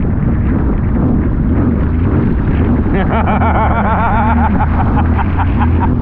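Jet ski engine running under way, with wind buffeting the microphone. A wavering higher tone joins about halfway through.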